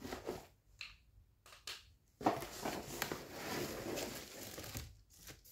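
Packaging rustling and crinkling as a vegetable cutter is pulled out of its box, with a few separate clicks and knocks in the first two seconds and a longer stretch of rustling from about two seconds in.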